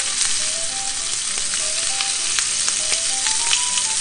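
Sliced pork sizzling steadily in hot oil in a small rectangular pan as it is stirred with wooden chopsticks, with a few light clicks. Faint background music plays underneath.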